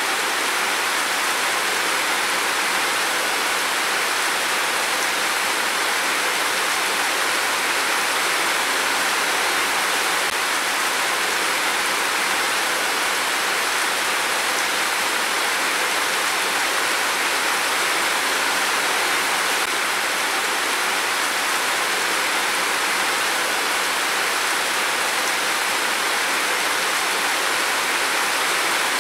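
Heavy downpour of rain, a steady even hiss with no thunder heard.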